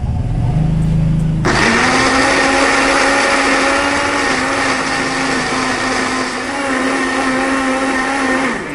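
Electric countertop blender grinding a wet spice paste. It starts as a low hum, then runs with a steady motor whine from about a second and a half in, and cuts off near the end.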